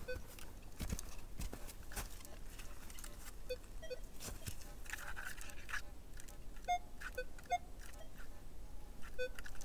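Metal detector, most likely the Minelab Equinox 800, answering as its coil is swept over a Roman coin buried about 25 cm deep: short, faint target beeps that alternate between a lower and a higher tone, from about three and a half seconds in. There are a few crunching steps on snowy ground at first.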